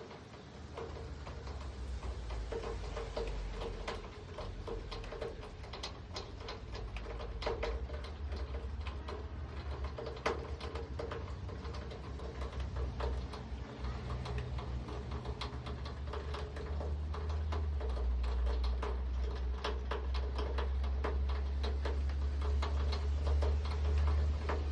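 Raindrops falling and pattering in many irregular sharp drips, over a low rumble that grows louder about two-thirds of the way through.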